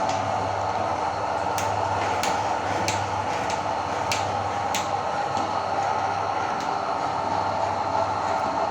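Electric meat grinder motor running steadily under load, with a few sharp clicks in the first half as it works through the chocolate.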